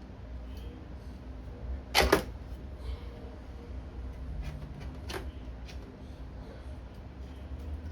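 Hard clacks from a hinged glass aquarium lid being handled and set in place: a loud double clack about two seconds in, a lighter click about five seconds in, and a few faint ticks.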